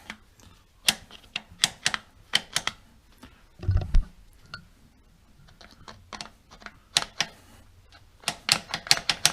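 Irregular light clicks and taps of metal parts and tools being handled on an engine while the timing is set, with one dull thump about four seconds in.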